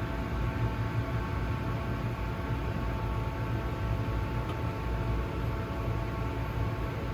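Haas TL-1 CNC toolroom lathe running with a steady hum and whine that holds one pitch throughout.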